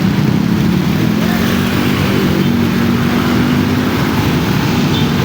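Traffic noise in a jammed road: vehicle engines running in a steady low rumble, with one engine's hum holding a steady pitch through the middle.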